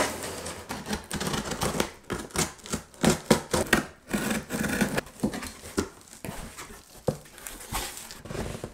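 Packing tape on a cardboard box being slit open with a key: a run of irregular sharp rips, scrapes and clicks of tape and cardboard. Near the end the cardboard flaps are pulled open.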